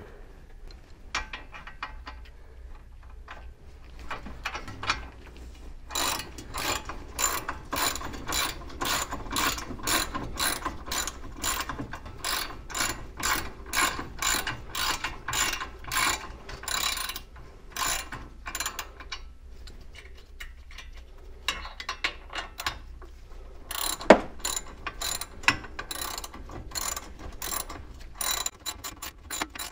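Hand socket ratchet clicking in long runs of quick, even clicks as the caliper mounting bolts are tightened down. It pauses briefly about two-thirds of the way through, and there is one sharper knock soon after it starts again.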